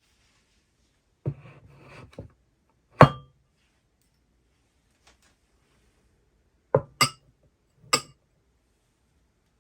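Hard objects clinking with short ringing: a knock followed by rustling about a second in, a loud ringing clink at about three seconds, then three more clinks near the end.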